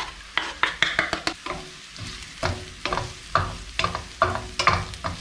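Wooden spatula stirring mushrooms, garlic and parsley in a frying pan, with repeated short scraping strokes over the sizzle of frying in oil.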